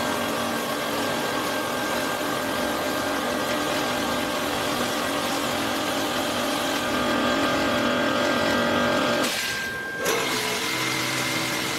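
A LeisuWash touchless automatic car wash running while its overhead arm sprays foam and water over a car. The pump gives a steady mechanical hum over a hiss of spray. The sound dips briefly a little before ten seconds in and comes back with a different hum.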